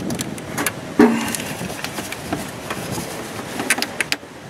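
Wrench clicking and knocking against a steering box line fitting as it is worked loose, with rustling and one louder knock about a second in.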